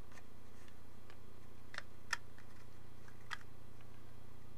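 A few light, irregular clicks and taps as the black floor piece of an Athearn Blue Box HO boxcar is handled against its plastic body shell, over a steady low hum.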